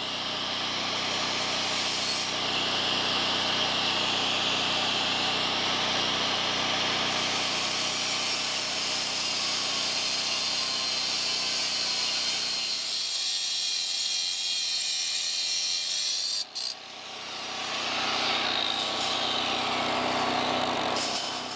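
Corded power tool cutting steel welded-wire fencing panels: a continuous high grinding whir over a lower machine hum. The hum drops away about two-thirds of the way through, and after a brief break the cutting sound goes on, shifting in pitch, until it stops at the end.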